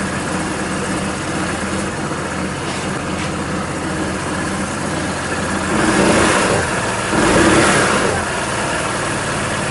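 KYMCO GP125i scooter's small single-cylinder four-stroke engine idling steadily after a fresh engine-oil and gear-oil change, run to check for leaks at the drain bolts. It gets louder twice, briefly, in the second half.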